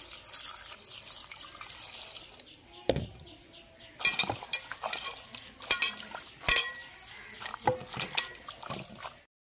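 Water pouring from a plastic mug into an aluminium pot of spinach leaves, then a hand swishing and pressing the leaves in the water to wash them. The washing brings several sharp splashes and knocks, some ringing briefly off the pot.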